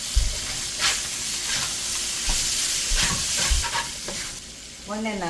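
Chicken pieces with ginger, garlic and dried chilies sizzling as they fry in a pan, stirred with a spatula that knocks and scrapes against the pan several times. The sizzle eases a little near the end.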